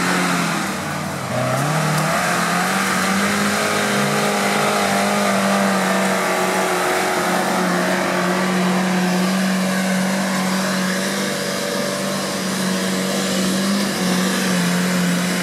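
Suzuki Samurai 4x4's engine running at high revs under load. Its pitch dips briefly about a second in, then climbs back and holds steady.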